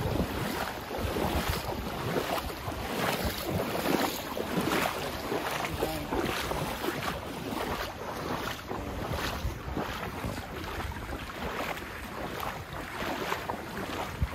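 Gusting wind buffeting the microphone outdoors: an uneven, rumbling rush that swells and dips every second or so.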